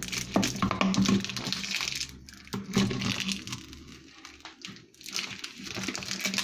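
Thin plastic label being peeled off a plastic soda bottle, crinkling and crackling in irregular bursts, busiest in the first two seconds, with another burst around the middle and quieter after that.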